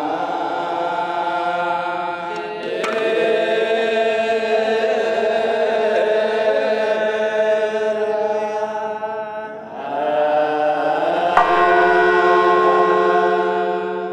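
Closing theme music with voices chanting in long held notes over a steady low drone. A sharp struck accent comes about three seconds in and another about eleven seconds in.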